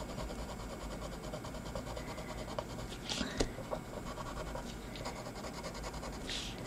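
Coloured pencil scratching across a painted paper master board as it shades. A faint steady scratching with a few louder strokes about three seconds in and near the end.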